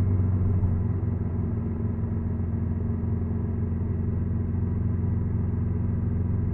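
Honda NC750X's parallel-twin engine running steadily at a constant low pitch, without revving.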